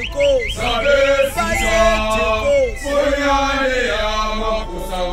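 A group of voices singing a traditional Zulu chant (ingoma), with long held notes falling at the ends and short high rising calls in the first second.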